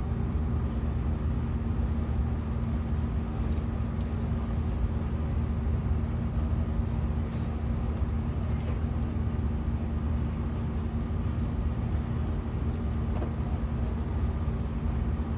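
Steady low rumble with a constant hum throughout, the road noise of a vehicle cabin in motion.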